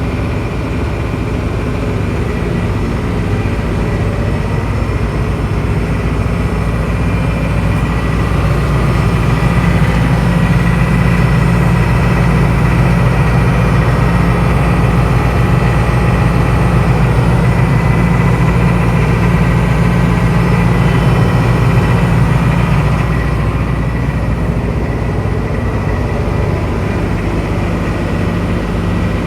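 Case CX210C crawler excavator's diesel engine running steadily; it grows louder about eight seconds in and settles back to a lower, idling level at about twenty-three seconds.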